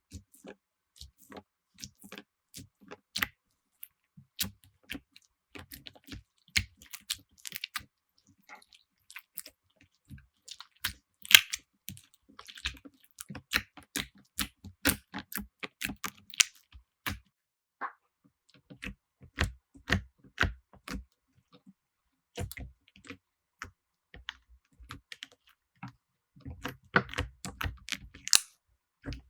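Slime being squeezed, poked and stretched by hand, giving off a steady stream of small sticky clicks, pops and crackles.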